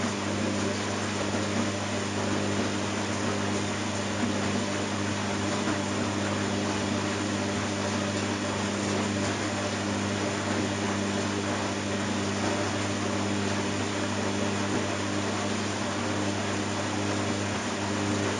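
Washing machine running: a steady motor hum under an even rushing noise, with no change in pace.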